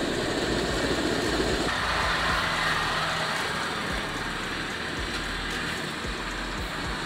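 Riding lawn mower engine running steadily as the mower drives over grass.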